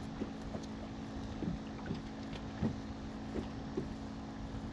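A steady low hum on a fishing boat, with scattered light clicks and knocks.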